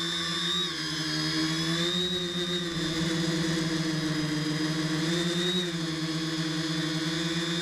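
X900 tricopter's three brushless outrunner motors (D283/11, 750KV) spinning 10x4.5 props in flight, a steady whirring hum whose pitch dips and rises a few times as the throttle changes.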